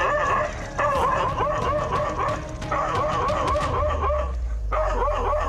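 A dog barking furiously in rapid volleys, about three barks a second with brief pauses between runs. A low steady rumble joins about four seconds in.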